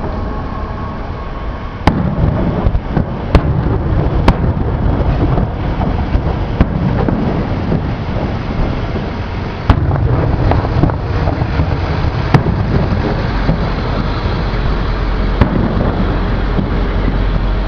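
Aerial firework shells bursting in a fireworks display: sharp bangs at irregular intervals, several in quick succession in the first few seconds and more spread through the rest, over a steady low background noise.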